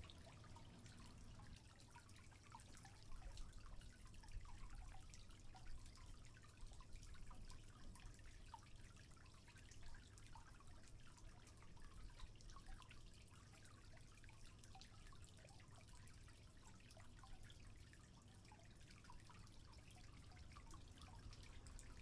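Faint trickling water with soft scattered drips.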